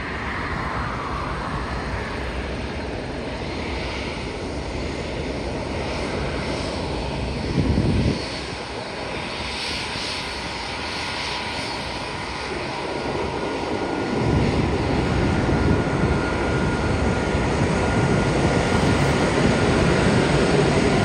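Airbus A380's four jet engines at taxi power: a steady rumble with a faint high whine, growing louder about fourteen seconds in as the jet rolls close by. A short, louder low rush comes about eight seconds in.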